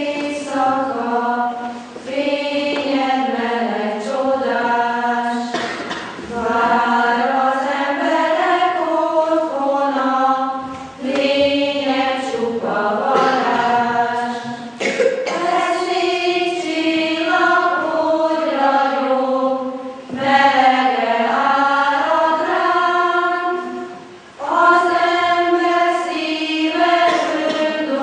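Women's choir singing in long phrases, with short breaks for breath about every four to five seconds.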